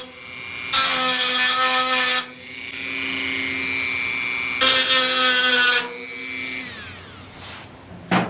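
Small corded rotary tool cutting into the steel edge of a VW bus sales flap in two loud bursts, with a steady high whine as it runs free between them. Near the end it is switched off and winds down, falling in pitch, and a sharp clunk follows just before the end.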